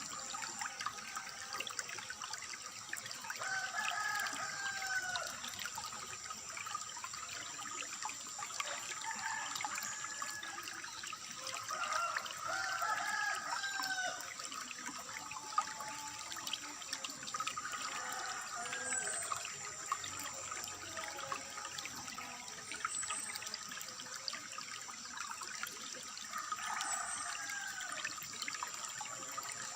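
Water trickling steadily, with birds calling on and off over it in short curved phrases.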